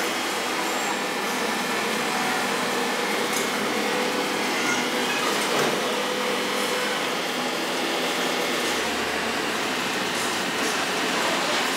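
Steady rushing noise of running water and workshop machinery around the plating and rinse tanks, even throughout with no distinct knocks or tones.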